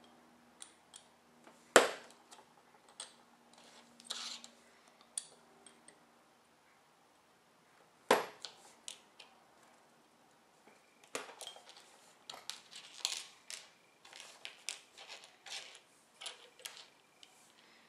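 Small plastic model-kit parts (a Ratio signal kit's lever pieces) being cut and snapped from the sprue with a hobby knife: two sharp snaps about six seconds apart, then a run of light clicks and taps as the plastic pieces are handled on the cutting mat.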